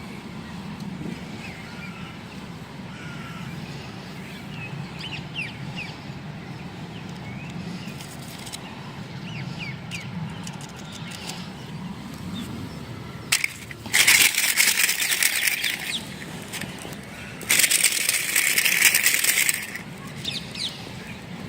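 Plastic packaging crinkling and rustling as it is handled and opened, in two loud stretches of about two seconds each, over a low steady hum.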